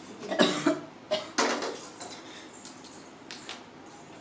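Steel cookware clanking: a few knocks as a steel bowl and kadai are handled and set on a gas stove, the loudest about half a second in with a short metallic ring. Two faint clicks follow near the end.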